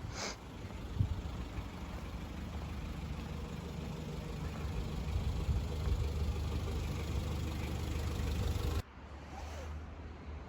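Car engine running steadily with a low rumble that rises slightly, then cuts off abruptly near the end.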